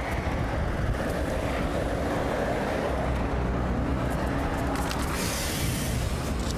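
Steady rush of wind on the camera microphone mixed with road traffic noise, with a brief hiss about five seconds in.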